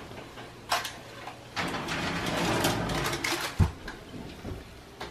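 Oven door opened and a lidded Dutch oven set onto the oven rack: a click about a second in, a rushing, scraping noise for nearly two seconds, then a heavy thud as the pot goes down, followed by a few lighter knocks.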